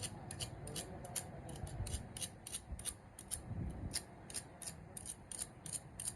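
A hand tool scraping metal in quick, even strokes, about three a second.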